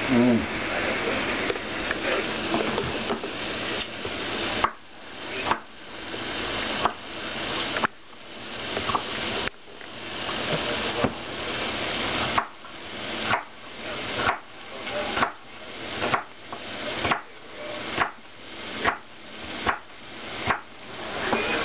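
Chef's knife chopping bell peppers into strips on a wooden cutting board: a sharp knock with each stroke, about one a second, starting about five seconds in. Under it runs a steady frying sizzle.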